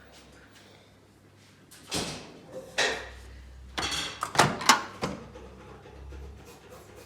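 LG microwave oven being handled: a run of clunks and clicks from its door and body, the sharpest two close together a little past the middle.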